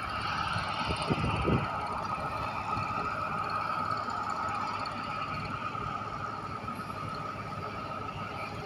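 Tractor loader's engine running steadily as it raises its bucket, with a steady whine.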